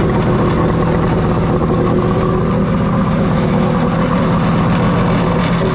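Jet boat's engine running steadily at its first start-up, with fresh cooling water hose-fed through the head.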